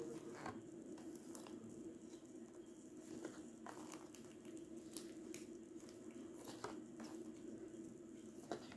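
Sheets of patterned scrapbook paper handled and shuffled by hand: soft rustles and a scattering of light flicks as sheets are lifted and slid over one another, over a low steady hum.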